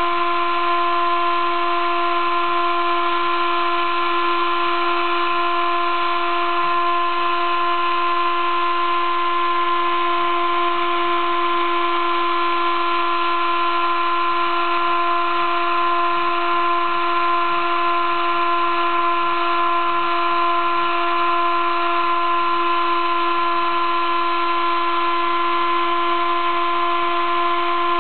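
Sable-2015 mini CNC mill engraving acrylic with a 20-degree V engraving cutter: a steady whine of several fixed tones over a constant cutting hiss, unchanging at the engraving feed.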